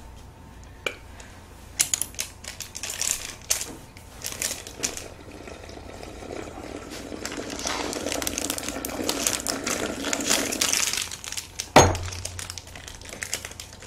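Plastic ice-cream-bar wrappers crinkling as melted ice cream is squeezed out, mixed with slurping as melted ice cream is drunk from a glass bowl. Near the end comes one sharp knock with a low thud, the glass bowl being set down on the table.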